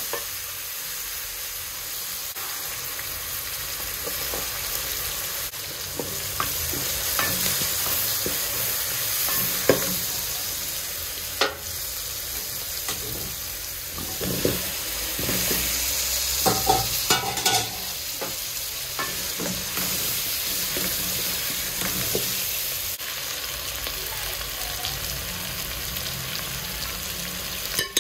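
Chopped onions and carrots sizzling in a metal pot while a wooden spoon stirs and scrapes, with scattered knocks against the pot. About halfway through comes a cluster of knocks as peeled whole potatoes are tipped in from a colander.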